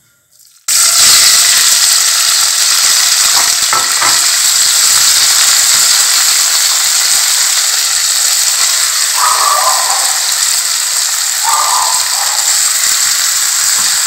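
Garlic, diced tomatoes and chopped onion sautéing in olive oil in a pan: a steady sizzle that starts suddenly under a second in.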